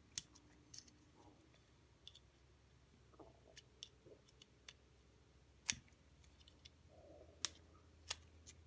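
Small parts of a Sig Sauer P365 striker assembly and slide clicking lightly as the striker is pushed down and the slide back plate is worked into place. The clicks are sparse and irregular, with a few sharper ones in the middle and near the end.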